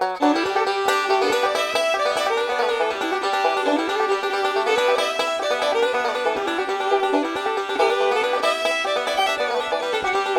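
Upbeat bluegrass-style music with fast plucked banjo and fiddle.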